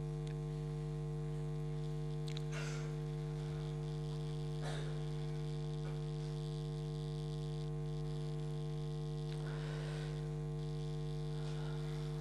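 Steady electrical mains hum, several level tones held at once, with a few faint short rustles over it.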